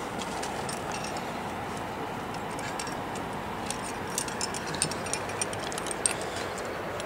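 A climber moving up granite, with light clicks and clinks of climbing gear, carabiners and quickdraws, and scuffs on the rock, clustered in the second half, over a steady rushing background noise.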